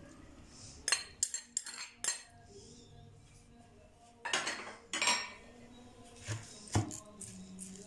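A spoon clinking and scraping against a glass bowl and a ceramic platter as butter is spooned out. There are several sharp clinks in the first two seconds, a longer scrape around the middle, and one more clink near the end.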